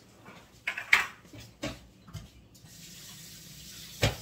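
A few sharp knocks and clatters, then a kitchen faucet running into a sink from about two and a half seconds in, a steady rush of water, with one more knock near the end.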